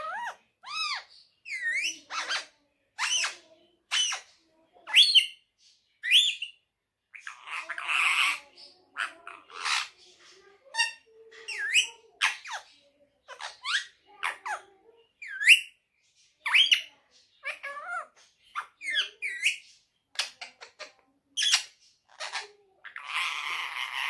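Indian ringneck parakeet calling: a rapid run of short chirps and whistles that bend up and down in pitch, with a harsh squawk about eight seconds in and another near the end.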